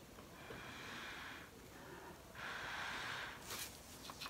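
A person breathing out twice through the nose, soft and hissy, each breath about a second long, the second a little louder. A few faint ticks follow near the end.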